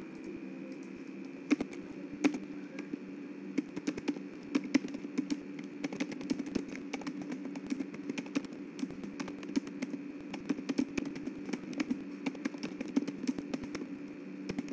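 Typing on a computer keyboard: a few scattered key clicks at first, then a quick, steady run of keystrokes from about four seconds in, over a steady low hum.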